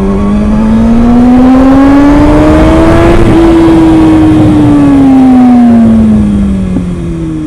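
Kawasaki ZX-6R 636 inline-four engine pulling hard under full throttle, its pitch climbing steadily for about three seconds and then falling away as the rider eases off. Heavy wind rush on the microphone runs under it.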